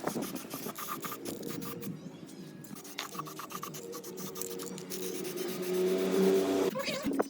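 Repeated rubbing and scraping strokes, like hand sanding or filing of a rusty metal part, over a steady low hum that grows louder from about five seconds in.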